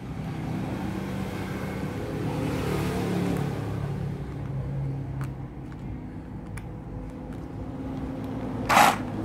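Steady low motor drone that shifts slightly in pitch, with a few light clicks from handling the tool and its clip leads and a short hiss near the end.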